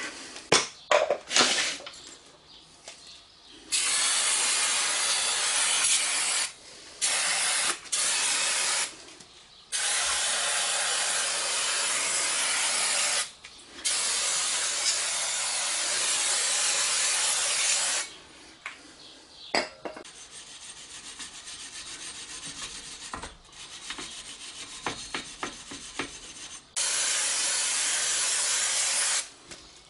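Aerosol brake cleaner hissing out of a spray can in six bursts, the longest about four seconds, onto a bare rear wheel hub to clean corrosion off its face. Light scratching and clicks sound between the bursts, with a gap of about eight seconds before the last one.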